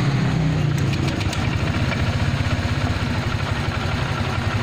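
Honda Vario 125 scooter's single-cylinder four-stroke engine idling steadily just after being started, following an ECU reset meant to cure its stuttering ('brebet').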